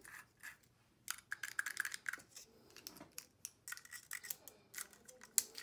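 Small metallic clicks and rattles from a dial combination padlock as an aluminium shim cut from a drink can is worked down between its shackle and body, busiest about a second to two seconds in.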